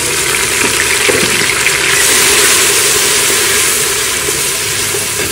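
Ground garlic sizzling loudly in hot oil with browned onions in a pressure cooker pot as it is stirred with a wooden spoon: a steady frying hiss.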